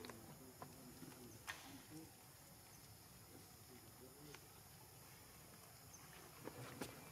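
Near silence: faint outdoor background hiss with a few soft, sharp clicks and ticks, a cluster of them near the end.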